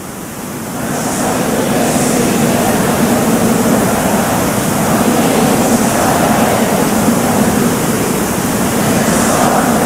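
A steady rushing noise that swells in over the first second and then holds level.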